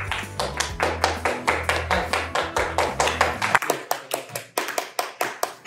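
Hand clapping in a quick, even rhythm, with low background music underneath that drops out a little past halfway.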